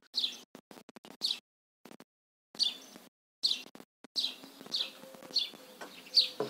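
A small bird chirping repeatedly: about eight short chirps that fall in pitch, roughly one a second.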